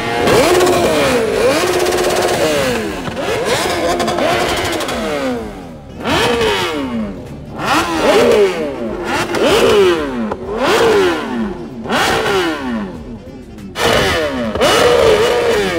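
Several superbike engines revving hard in repeated overlapping throttle blips, each rising steeply in pitch and dropping back, one every second or two.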